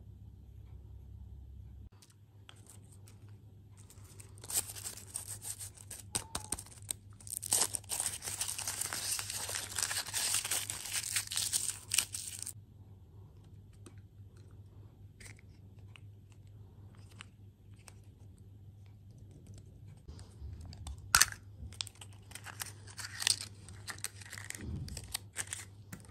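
A food wrapper being torn open and crinkled, rustling for several seconds, then scattered small clicks and handling noises.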